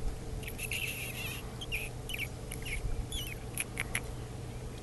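Ruffed grouse giving a rapid series of short, high squeaky chirps, some sliding up or down in pitch, over a faint steady hum.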